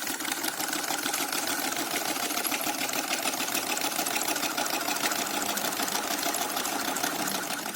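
Small homemade tin-can Stirling engine running, a fast, steady mechanical rattle of light metal parts.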